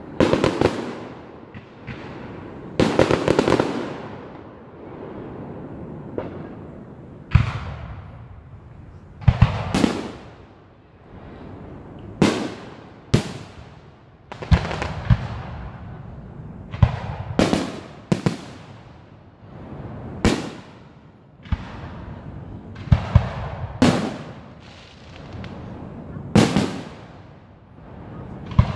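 Aerial firework shells bursting in a display: sharp booms every second or two, some in quick pairs, each trailing off in a long echo.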